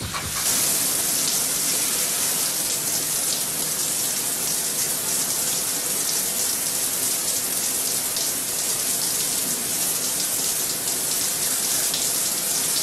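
A shower running: a steady spray of water hissing down inside a glass cubicle. It starts abruptly and holds steady.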